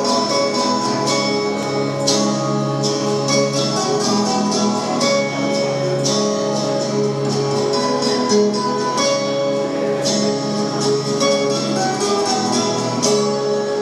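Acoustic guitar playing the song's instrumental introduction, chords strummed in a steady rhythm, with no vocals yet.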